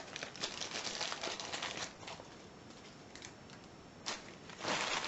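Packaging rustling and small hard items clicking as a box of padlocks is unpacked by hand: busy for about two seconds, then quieter, with a sharp click about four seconds in and a louder rustle near the end.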